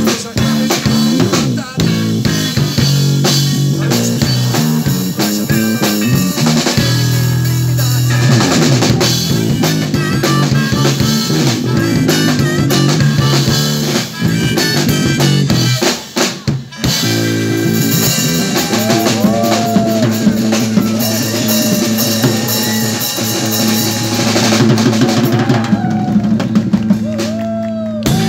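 Live band playing an instrumental passage: drum kit, electric bass and electric guitar. After a brief break about halfway through, a lead line with bent, sliding notes runs over the groove, and the music drops away right at the end.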